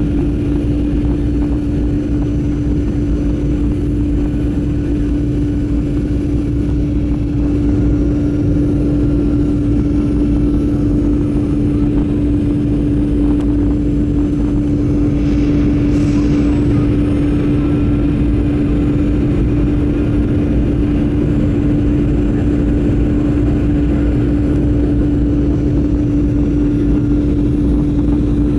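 Cabin noise of a Boeing 737-900ER airliner in flight: the CFM56-7B turbofan engines and airflow give a steady rushing noise with a constant droning hum, a little louder from about eight seconds in, and a short hiss about halfway through.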